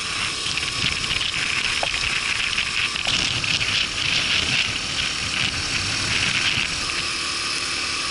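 Riding noise of a Honda Super Cub 50 moving along a wet road: a steady hiss of wind and tyres, easing a little about seven seconds in.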